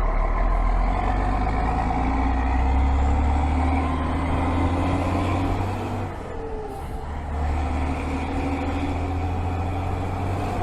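Scania 112's straight-piped six-cylinder diesel engine running with a steady rumble, its injection pump and injectors freshly adjusted. About six seconds in it eases off for a moment, then pulls again.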